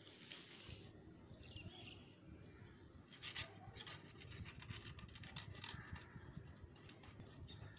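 Long knife sliding through the slot of a stainless-steel cake layer slicer ring and sawing through sponge cake: faint, repeated rasping scrapes from about three seconds in, after a brief rustle at the start.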